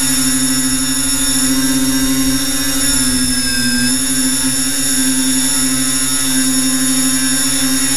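FPV tricopter's motors and propellers whining steadily, heard up close from the camera on board, the pitch wavering slightly with the throttle.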